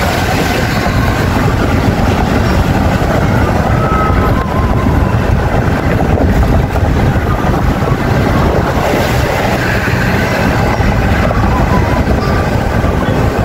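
Steady road and engine rumble of a moving car, heard inside the cabin.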